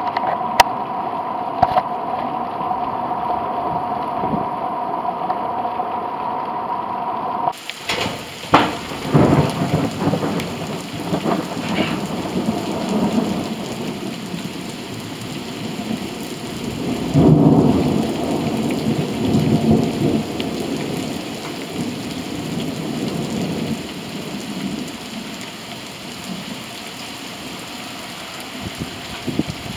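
Steady rain falling on pavement and grass, with low rumbles of thunder swelling and fading, loudest around the middle. For the first several seconds the sound is muffled and dull, with a steady hum, because there is water in the camera's microphone; it then changes suddenly to a clear rain hiss.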